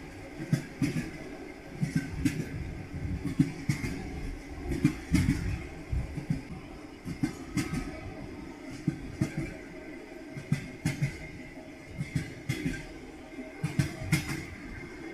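Train wheels clattering over rail joints, clickety-clack: repeated sharp knocks in irregular groups over a steady low rumble of a moving train.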